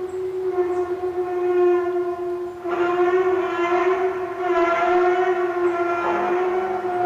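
Loud, steady horn-like drone held on one pitch, with a rougher, fuller swell coming in about three seconds in and again around four and a half seconds: one of the unexplained strange sounds heard in the sky.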